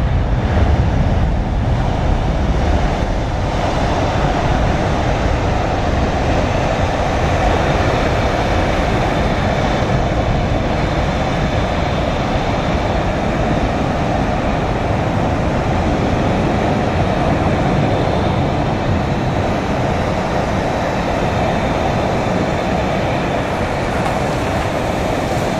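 Airbus A320-232 jet engines (IAE V2500 turbofans) at takeoff thrust as the airliner lifts off and climbs away: a steady, deep rushing noise that grows slowly fainter as the jet gains distance.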